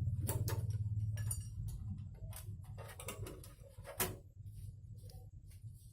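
Scattered light clicks and taps of tools and small metal parts being handled, the sharpest about four seconds in, over a low hum that fades away in the first couple of seconds.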